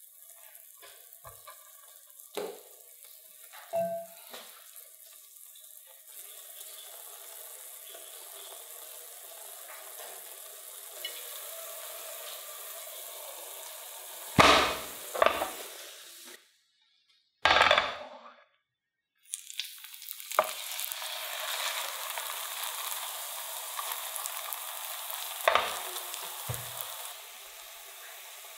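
Oil sizzling under a potato pancake shallow-frying in a nonstick pan, with a couple of light spatula knocks in the first few seconds. About halfway, a few sharp clatters as a plate is set over the pan and the pancake turned, with two short breaks, then louder steady sizzling as the second side fries.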